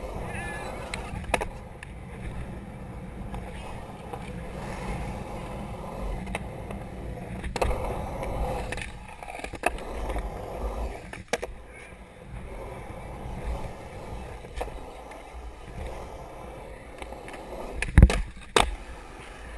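Skateboard wheels rolling over concrete, a steady low rumble broken by a few sharp clacks of the board, with two loud clacks near the end.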